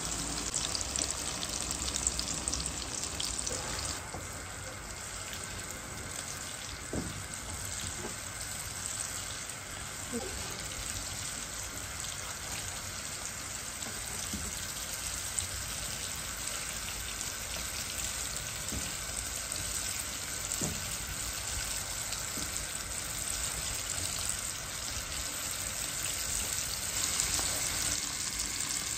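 Food sizzling as it fries in oil in a non-stick wok: a tomato masala, then chunks of tikka chicken from about four seconds in. A steady hiss runs throughout, with a wooden spatula now and then stirring and scraping.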